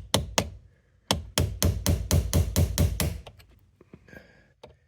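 Hammer driving a sharp chisel against the soft, headless bolts that hold a 2013 Kia Optima's ignition switch housing to the steering column, metal on metal: three single taps, then a quick run of about a dozen blows, about six a second, which stops about three seconds in.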